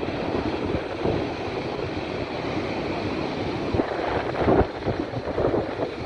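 Big surf breaking and washing over a rocky shore, with wind buffeting the microphone into an irregular low rumble. It swells to a louder surge about four and a half seconds in.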